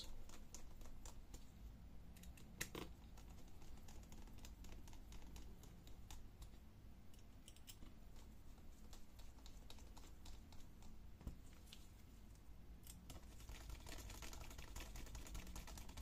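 Faint, scattered small clicks and taps of a small screwdriver and fingers working the screws of a laptop's CPU cooler assembly, with one sharper click about three seconds in and light scraping near the end.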